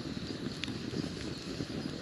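Wood fire burning: a steady low rush of the flames, with a few sharp crackles from the burning logs.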